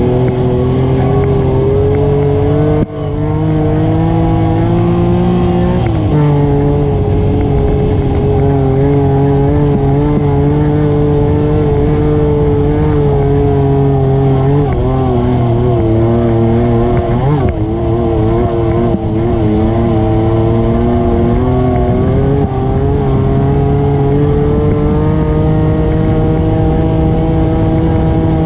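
ATV engine running under way, loud and steady, its pitch drifting gently up and down, with a brief sudden dip about three seconds in.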